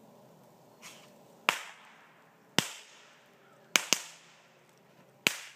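Shotgun shells cooking off in a bonfire: five sharp, loud pops roughly a second apart, two of them in quick succession near the middle, each with a short ring-out. A softer pop comes just before the first.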